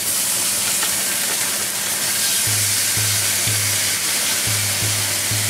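Miso-marinated meat sizzling in a hot frying pan as it is squeezed out of its plastic bag, the sizzle rising as the meat lands at the start and then holding steady.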